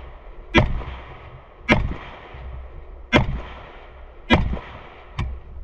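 Five rifle shots from an AK-pattern rifle, fired about a second apart, each with a short echoing tail. The last shot is slightly weaker.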